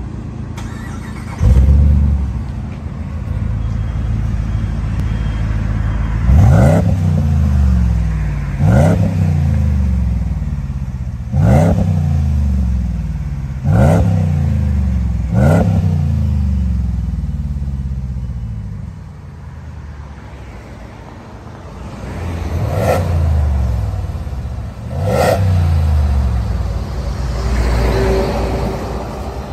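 Toyota pickup truck engine running through a newly fitted aftermarket exhaust, idling and then revved in short blips, about seven or eight times, each rev rising and falling back to idle. It is quieter for a few seconds in the middle before the revs resume.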